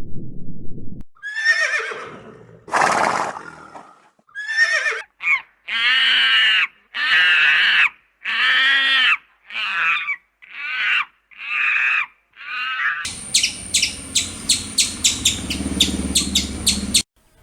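A run of animal calls: about a dozen separate short calls, one after another, then a different high steady sound laced with rapid regular clicks that stops suddenly near the end.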